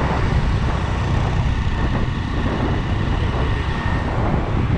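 Steady low rumble of a motor vehicle on the move.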